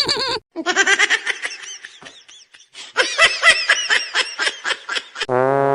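High-pitched laughter in two bouts of quick, pulsing ha-ha-ha sounds, the first fading out about halfway through. Brass notes come in near the end.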